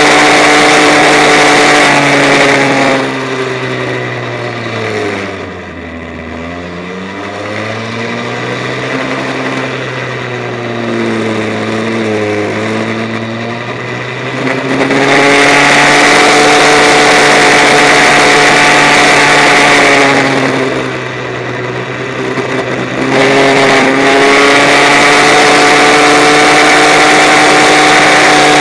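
Go-kart engine heard close up from an onboard camera, running at a steady high pitch at full throttle, then dropping in pitch and loudness as the throttle is lifted for about twelve seconds of corners, before pulling back up. It drops off again briefly about three quarters of the way through and climbs back to full revs.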